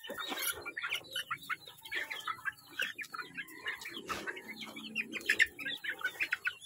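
Chickens clucking, a steady run of short calls one after another.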